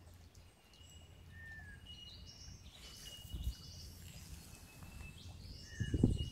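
Birds calling with short chirps and little falling whistles, over a thin, steady high tone that comes and goes. A couple of low thuds come about halfway through and near the end.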